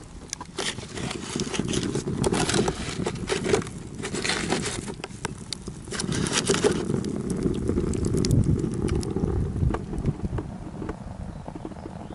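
Wood fire burning in the feed opening of a firebrick rocket stove: crackling over a low rushing sound, with scraping and clicking that thin out after about seven seconds.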